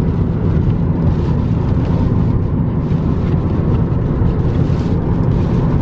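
Steady cabin noise of a car driving at highway speed in rain: tyres on the wet road and wind, with rain hitting the windshield.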